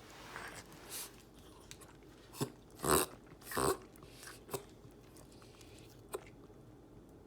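Dog hiccuping: a handful of short, sharp hics at uneven intervals, the loudest two about three and three and a half seconds in, then a last one near the end.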